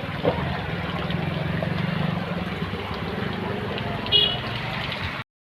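Road traffic: a vehicle engine running steadily under a noisy background, with a short horn toot about four seconds in. The sound cuts out abruptly near the end.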